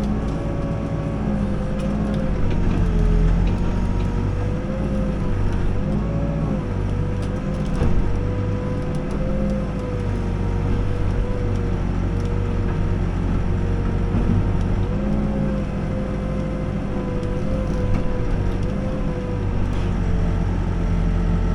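New Holland B95 backhoe loader's diesel engine running under load as the backhoe works, with a steady low hum and a hydraulic whine that wavers gently up and down in pitch.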